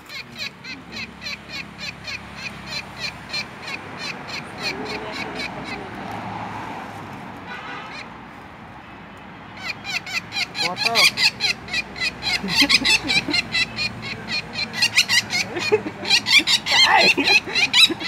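A hand-held red-backed woodpecker (flameback) giving rapid, harsh repeated calls, several a second. A shorter run comes in the first few seconds and a louder, longer run from about ten seconds on: the distress calls of a captured bird.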